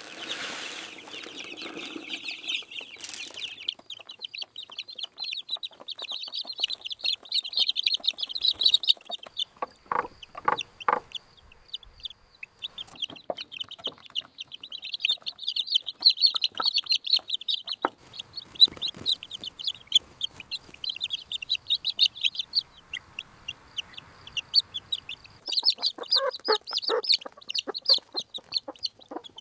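A large flock of hens clucking and calling all at once in a dense, continuous chatter, with a few knocks about ten seconds in.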